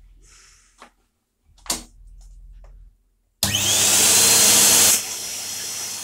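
A few clicks, then the Hetty vacuum cleaner's motor starts about three and a half seconds in, its whine rising quickly to a loud steady run. After about a second and a half it drops sharply in level and the whine slowly falls.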